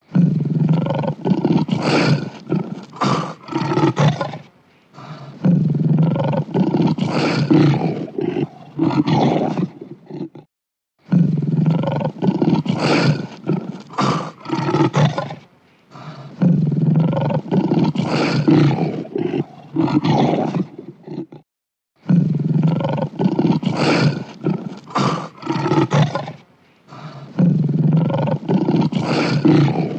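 Lion roaring in loud bouts of several seconds. The same roaring sequence repeats about every eleven seconds, with a brief silence between repeats.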